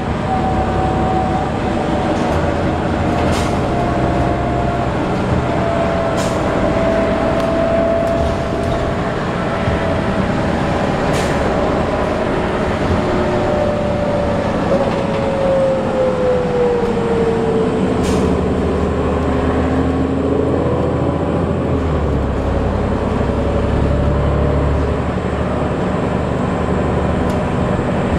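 Inside a 2008 New Flyer D40LF diesel city bus under way: engine and drivetrain running over road rumble, with a whine that slowly drops in pitch through the middle and climbs again near the end as the bus changes speed. Four sharp clicks or rattles are heard along the way.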